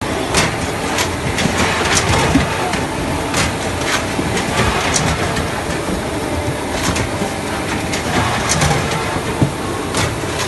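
Steady din of poultry-line machinery, with a sharp metallic clack every second or so at uneven intervals, from a MOBA Maxipack automatic chicken bagging machine at work.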